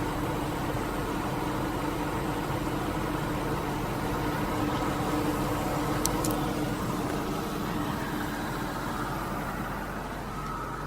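Ford 5.4 L Triton 32-valve V8 of a 2001 Lincoln Navigator idling steadily, with two sharp clicks about six seconds in. The owner reports a ticking, tapping noise from this engine and does not know its cause.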